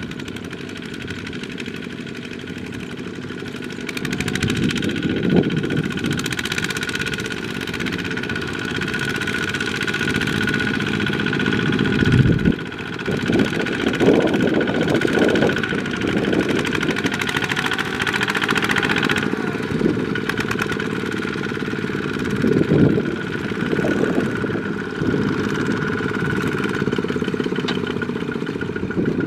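Single-cylinder diesel engines of several two-wheel walking tractors running under load, a steady chugging that swells and fades as the machines pass close by. There is a sudden loud thump about twelve seconds in.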